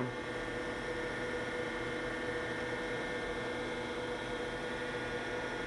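Shigiya GUA-20-25 universal cylindrical grinder running in automatic traverse grinding, a steady hum with no distinct knocks. The infeed is down to zero and the machine is sparking out, counting down its table reversals.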